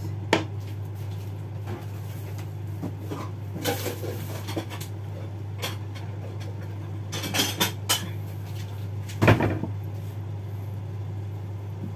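Kitchen handling sounds: scattered knocks, clicks and clatter of utensils and items on the counter, in a cluster around seven to eight seconds in and loudest as a single knock about nine seconds in, over a steady low hum.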